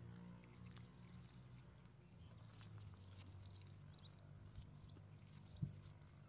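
Near silence: faint wet clicks of a mouthful of taco being chewed, over a low steady hum, with one small knock near the end.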